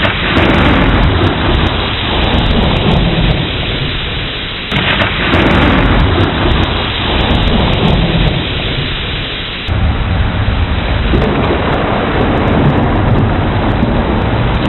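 Thunderstorm: steady heavy rain with low rolling thunder rumbling underneath. The sound jumps abruptly louder about five seconds in and again about ten seconds in.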